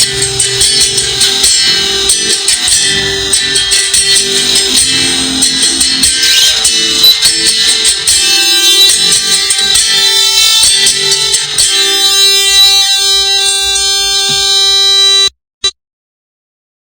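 Instrumental music with guitar, loud and dense with sharp percussive hits, that stops abruptly about fifteen seconds in, followed by a single short blip and then silence.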